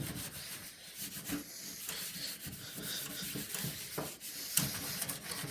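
Paper towel wiping and scrubbing the plastic front panel of a desktop computer case wet with isopropyl alcohol, a steady scratchy rubbing with a couple of sharp knocks about four seconds in.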